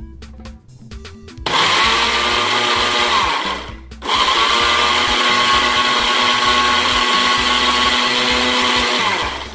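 Electric blender puréeing boiled peppers and onions, run in two bursts: about two seconds, a brief stop, then about five seconds more before it winds down.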